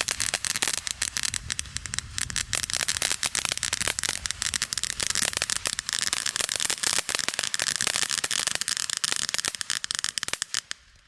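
Consumer fireworks cake firing fan-shaped sprays of gold sparks: a dense hissing crackle packed with rapid sharp pops, dying away near the end.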